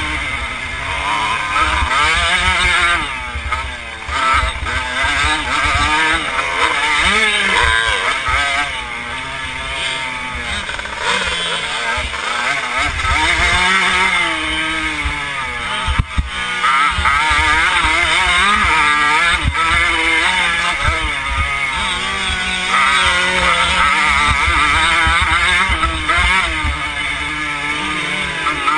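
Motocross dirt bike engine revving up and down again and again as it is ridden hard, heard from a helmet camera with wind buffeting the microphone. A single sharp knock comes about halfway through.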